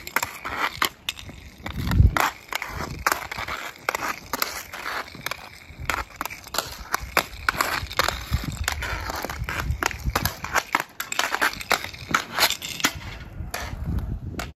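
Hockey stick blade rapidly and irregularly clacking against hard pucks and scraping on asphalt during fast stickhandling, with inline skate wheels rolling over the pavement underneath.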